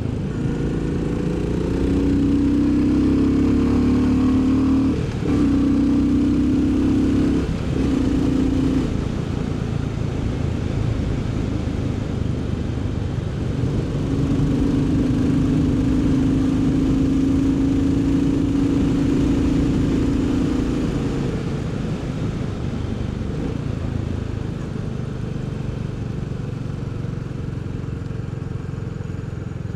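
Royal Enfield Bullet 350's single-cylinder engine under way: it pulls up through the gears with two short breaks at the shifts, about five and seven and a half seconds in, then holds a steady cruise and eases off over the last several seconds.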